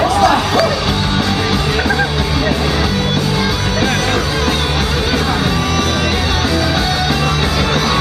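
Loud rock music with a steady bass line and singing, with some shouting over it.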